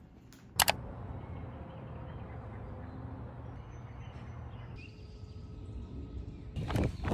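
A sharp click about half a second in, then a steady low rumble of outdoor background noise, with scuffing sounds starting near the end.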